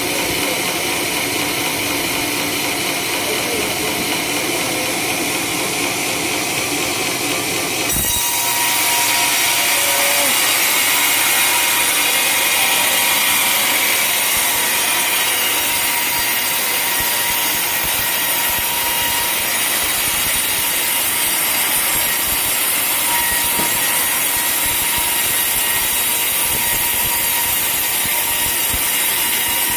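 Sawmill saw cutting through a coconut-palm log: a steady, loud mechanical sawing noise that turns louder and hissier about eight seconds in.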